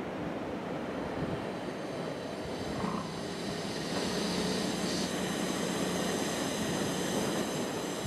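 Steady noise of breaking surf and wind. About halfway through, a low rumble joins it and grows a little louder.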